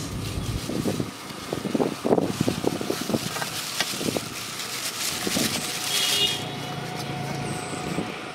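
Black plastic bag rustling and quick light taps as small fish are shaken out of it onto a steel plate, with the steady hum of a passing vehicle underneath.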